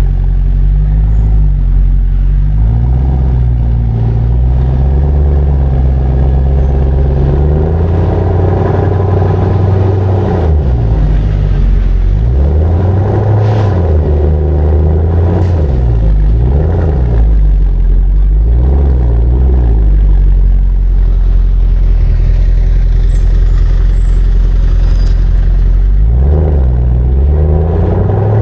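Mercedes-AMG S63's V8 engine running under way, its pitch rising and falling again and again as the revs climb and drop.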